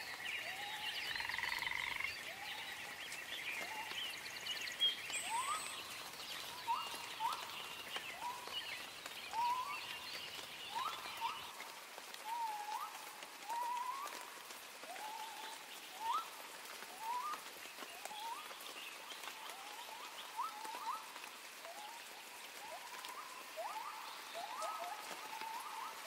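Animal calls in a nature ambience: short rising chirps about once a second, with higher twittering calls over them for roughly the first half.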